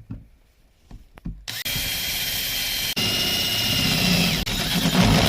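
Electric drill fitted with a hole saw, cutting a hole in a PVC drain pipe. It starts about a second and a half in and runs with a steady whine, cutting out for a moment about three seconds in, with the whine dropping in pitch near the end.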